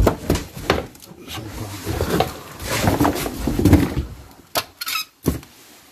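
A plastic caster board being pulled out from between cardboard boxes: scraping and rustling against the cardboard with irregular knocks, then a couple of sharp clicks near the end.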